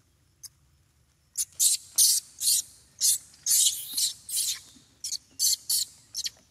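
Baby macaque crying in short, high-pitched screams, about two a second, starting about a second and a half in: a baby upset at being set down.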